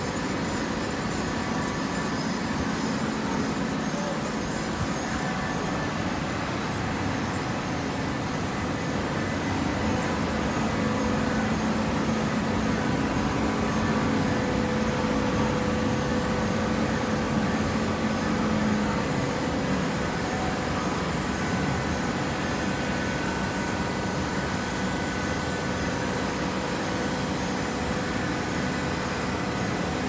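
Automatic horizontal hydraulic baler running, a steady machine hum with several held tones from its motor and hydraulic pump. A lower drone swells louder for several seconds in the middle and then drops away.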